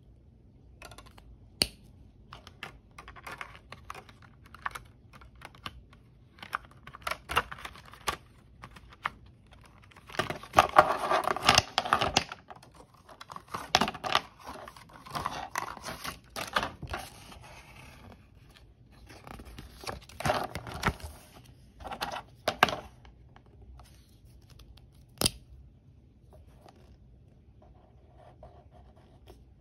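Plastic blister packaging of a set of Staedtler metallic brush pens crinkling and rattling as it is opened and the pens are taken out, with sharp clicks of pens and caps against a wooden desk. Faint pen-on-paper scratching near the end.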